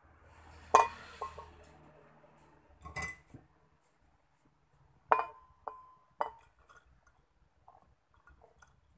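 Glass blender jar clinking: about six sharp knocks, the loudest about a second in, some leaving a short ringing tone.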